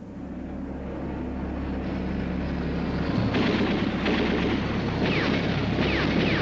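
Battle sound effects over war footage. A low rumble builds over the first few seconds, then a run of heavy artillery blasts starts about three seconds in, some of them with short falling whistles.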